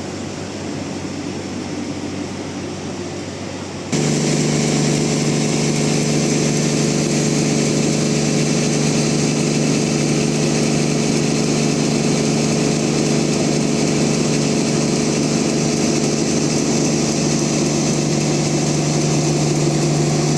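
Sawmill machinery running steadily. About four seconds in the sound jumps suddenly to a much louder, steady engine-like running with a constant hum.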